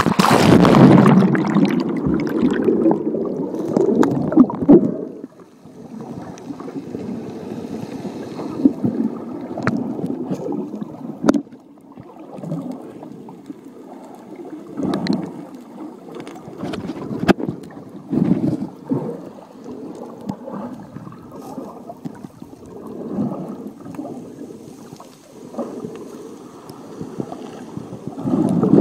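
Seawater splashing and sloshing around a phone in a waterproof case as it moves at the surface and goes under, loudest in the first few seconds. Then muffled underwater water noise that swells and fades, with a few sharp clicks.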